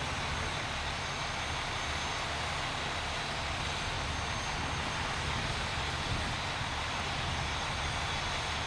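Steady, unbroken engine-like rumble with a constant hiss over it, unchanging throughout.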